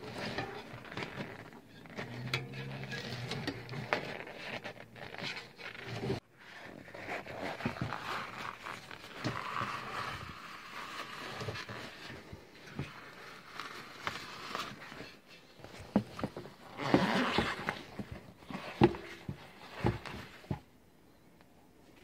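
Bicycle tyre being levered off its rim with a tyre lever: the rubber tyre scrapes and rubs against the rim, with irregular clicks and knocks of the lever against the rim and spokes. There is a louder stretch of scraping about three-quarters of the way through.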